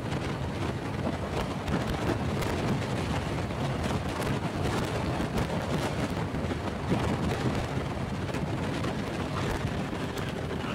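Steady wind rush buffeting the microphone of a moving motorcycle, a Honda Pop 100, with the bike's engine and road noise mixed in underneath.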